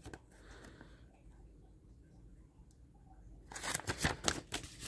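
Nearly quiet at first, then paper rustling about three and a half seconds in as the folded pages of a user manual are handled and flipped.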